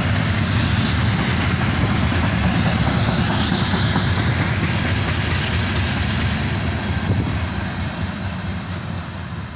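Open-top hopper cars of a freight train rolling past at close range: the steady noise of steel wheels running on the rail, fading from about seven seconds in as the end of the train moves away.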